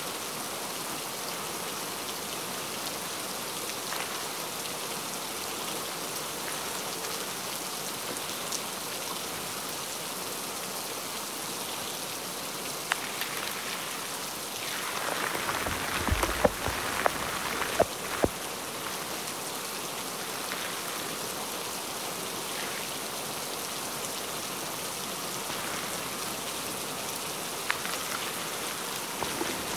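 Steady rain falling, pattering on the tent fabric and the truck bed. About halfway through comes a few seconds of louder handling noise with several sharp knocks as the wet tent fabric is pulled over the tailgate.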